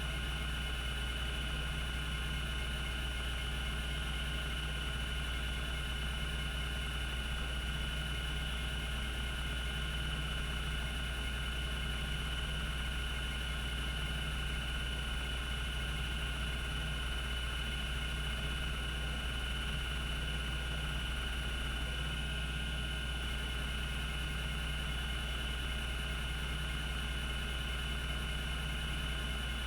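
Cogito Systems CG-912 half-height 5.25-inch hard disk spinning at speed without seeking: a steady hum with steady high tones and no stepper clicks.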